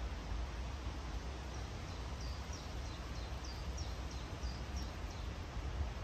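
Steady rustling of bamboo leaves in the wind, with a low rumble of wind underneath. From about a second and a half in, a small bird sings a run of short high chirps, about three a second, for some three and a half seconds.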